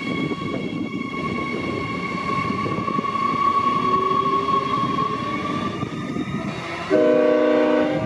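Queensland Rail electric multiple-unit passenger train running through the station, with a steady rumble and a high steady whine. About seven seconds in, a horn sounds one blast lasting about a second.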